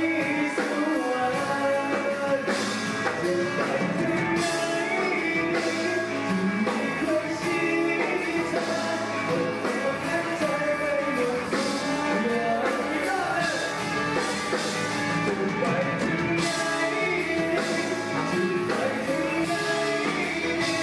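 Live rock band playing through a PA, with a man singing over electric guitar, bass and drums, recorded on a phone from the audience.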